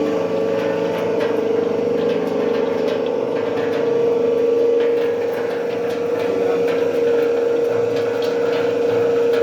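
Five-inch soap plodder running steadily: a constant machine hum with one strong, even tone and faint ticks above it.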